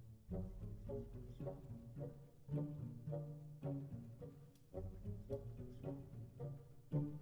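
Background music: orchestral strings with low cello and bass notes in a steady rhythmic figure.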